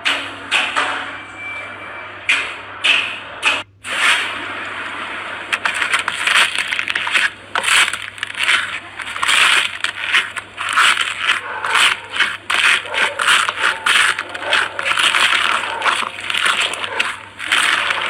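Slime being squeezed and worked by hand, giving a fast, irregular run of crackling, popping clicks.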